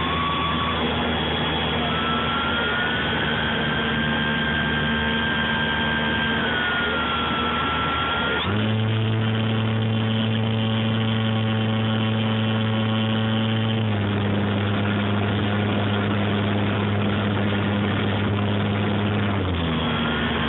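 Dynam Corsair's brushless electric motor and propeller running, recorded by a camera on board the plane: a steady hum with a high whine. The pitch jumps up sharply about eight seconds in as the throttle is opened, shifts slightly around fourteen seconds, and drops again just before the end.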